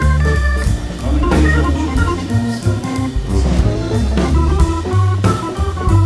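Instrumental background music: held organ-like chords over a bass line and a drum beat.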